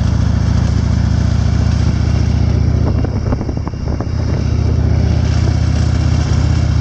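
Motorcycle engine running at low road speed, a steady low engine note that dips briefly about three seconds in before settling back.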